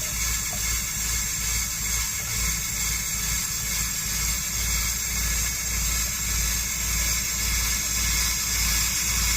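RV 12-volt water pump running while the bathroom sink faucet flows into the basin: a steady hiss of flowing water over a low, regularly pulsing pump drone. The pump is pushing antifreeze through the water lines to winterize them, still flushing out water before the pink arrives.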